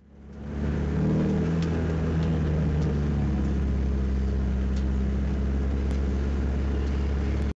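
Spec Miata race car's inline-four engine running steadily as the car rolls slowly, heard from inside the cockpit. The sound fades in over the first second and cuts off abruptly at the end.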